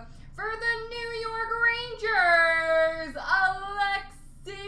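A high voice singing long, wordless held notes, one of them sliding down in pitch about two seconds in.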